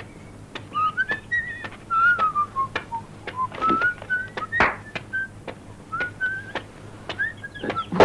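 A person whistling a wandering tune, with sharp taps about twice a second underneath.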